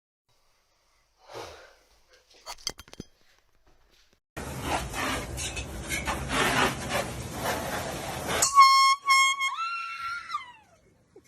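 A loud, noisy blast lasting about four seconds, then a reedy air horn tone in a few short toots and one longer toot that bends up in pitch and sags away.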